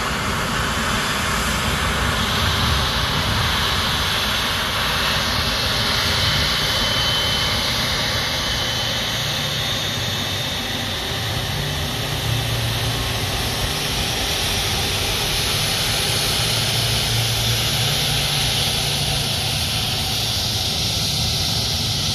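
Airbus A330-300's Rolls-Royce Trent 700 jet engines running at taxi thrust as the airliner taxis past: a steady jet whine and rumble, with a thin high whistle coming through for a couple of seconds about a third of the way in.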